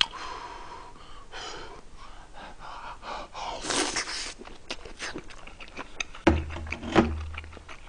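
A man breathing in and out through his mouth as he eats a mouthful, with a loud, sharp intake of breath a little before halfway and a low closed-mouth 'mmm' near the end.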